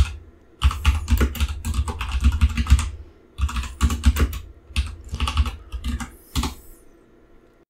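Typing on a computer keyboard in quick bursts, each keystroke a click with a low thud, with a short pause about three seconds in; the typing stops near the end.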